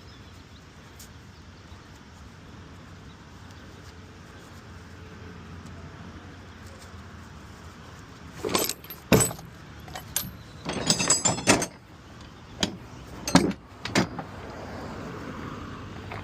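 Low steady background noise, then from about halfway an irregular run of metallic clanks and jingling rattles as tire-change gear is handled.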